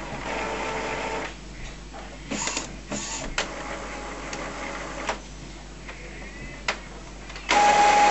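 Epson BX300F inkjet printer running its cartridge check and initial ink charge after a continuous ink supply system has been fitted. A short steady motor whir is followed by scattered mechanical clicks, then near the end a much louder, steady motor whine starts abruptly.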